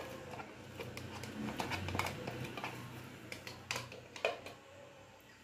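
Light, scattered taps and knocks on the plastic bowl of a Tupperware Turbo Chef chopper as the chopped seasoning is knocked out of it, about one tap a second.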